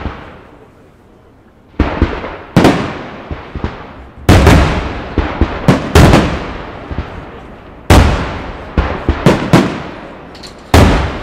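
Aerial firework shells bursting in a professional display: a run of sharp booms, each with an echoing tail. After one bang at the start and a short lull, the booms come thick and fast from about two seconds in.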